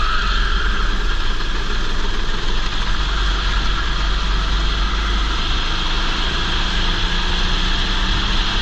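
Go-kart engine running steadily at racing speed, heard through a helmet-mounted camera with heavy wind rush and low buffeting over the microphone.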